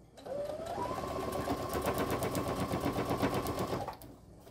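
Baby Lock sewing machine stitching through a thick cotton webbing strap and fabric: the motor whine rises quickly as it gets up to speed, then runs steady with rapid, even needle strokes, stopping about four seconds in.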